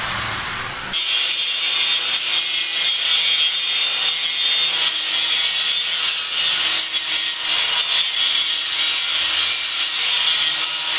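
Steady rasping of a tool cutting or abrading material in building work, starting abruptly about a second in and cutting off sharply at the end.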